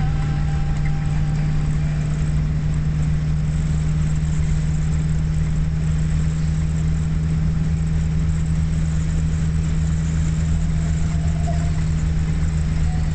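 1957 Chrysler Windsor's V8 engine cruising at a steady speed, heard from inside the cabin as an even low drone with tyre and wind noise.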